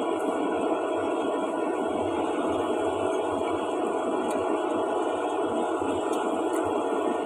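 Steady, even background noise with a few faint, light clicks.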